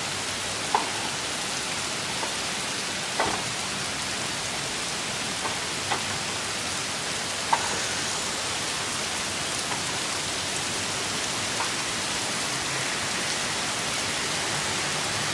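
Heavy monsoon downpour hissing steadily, with a few louder single drip sounds here and there.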